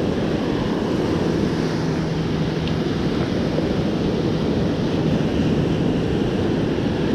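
Ocean surf washing up the beach, a steady rushing noise, with wind buffeting the microphone.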